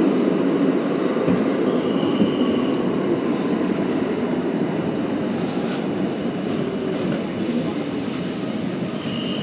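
An R32 subway train heard from inside the car, running along a station platform: a steady rumble of wheels on rail that gradually eases as the train slows. A faint high-pitched tone sounds briefly about two seconds in.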